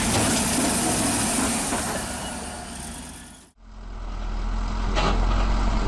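Heavy bulldozer diesel engines running steadily. The first has a high whine over the engine noise; it fades out about three and a half seconds in and gives way to a deeper, heavier engine rumble.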